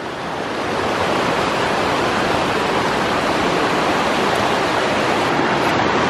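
Small mountain creek spilling over a low cascade into a pool: steady rushing water, growing a little louder over the first second and then holding even.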